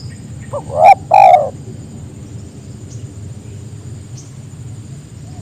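Spotted dove (tekukur) giving one three-note coo about half a second in, the last note the longest, over a steady low background hum.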